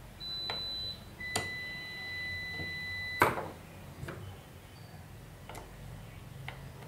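An electronic beep: a short high beep, then a steady two-tone beep of about two seconds that cuts off with a sharp click. A few light knocks follow as hand tools are handled on a wooden table.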